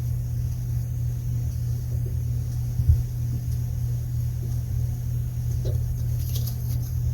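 A steady low hum, with one dull thump just before three seconds in and faint light rustling near the end.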